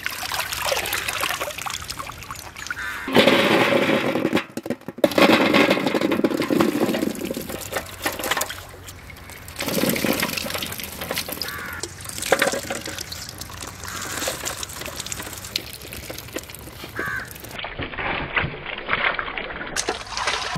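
Water splashing and pouring, in several stretches that change abruptly from one to the next.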